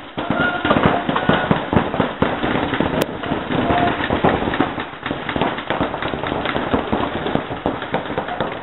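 Several reball markers firing rapid, overlapping shots in a large indoor hall, a dense, irregular crackle of pops that never lets up.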